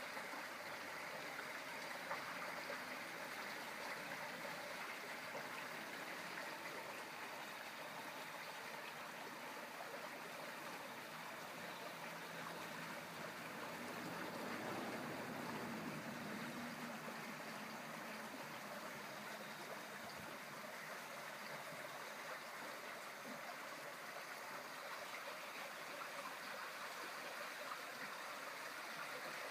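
Steady flowing water, an even rushing hiss that goes on without a break.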